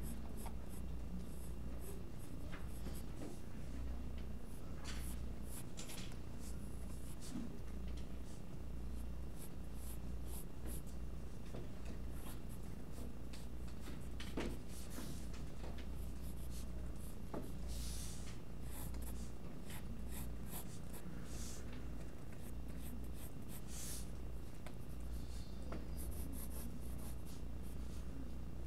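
Mechanical pencil lead scratching on paper in short, irregular sketching strokes, over a steady low hum.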